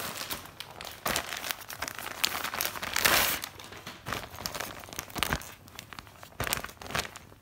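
Packaging crinkling as it is handled and opened, a dense run of irregular crackles with a louder stretch about three seconds in.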